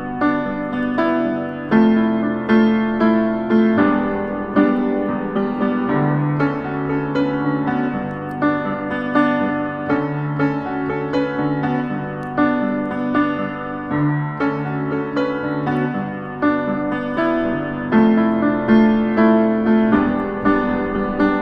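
Solo upright piano played: a flowing piece of many quickly struck notes and chords over held bass notes.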